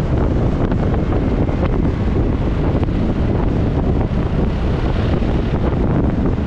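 Steady, heavy wind buffeting on the microphone of a camera on a scooter riding at road speed.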